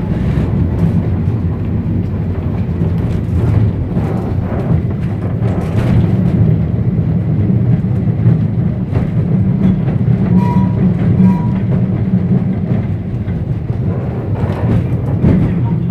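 Heritage electric tram running along its rails, heard from inside the wooden saloon: a steady low rumble from the motors and wheels, broken by frequent irregular clicks and knocks.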